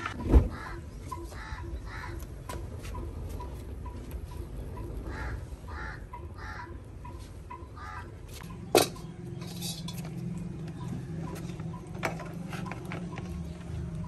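Wooden firewood planks knocking together as they are stacked under a stove, with one loud knock about half a second in and a sharp crack near nine seconds. A bird calls a few times in the background.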